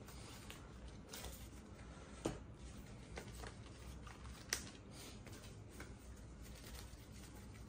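Quiet handling of playing cards on a tabletop: faint rustling, with two short sharp taps, one about two seconds in and another a little past four seconds.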